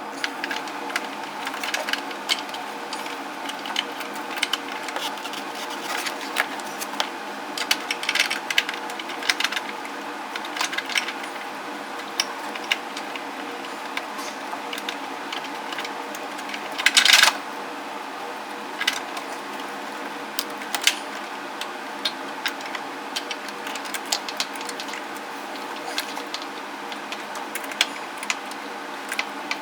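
Scattered clicks, taps and rustles of a car door wiring harness being worked back through the door jamb, with a louder cluster of knocks about 17 seconds in, over a steady background hum.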